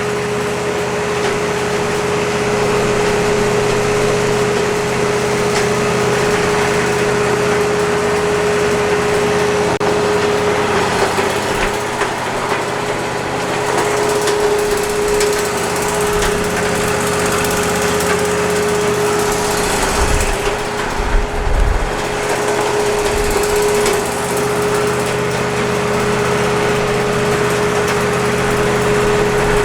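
Wood-Mizer LT40 sawmill running steadily, its band saw blade cutting through a driftwood log with a constant high hum. A few low thuds come about two-thirds of the way through.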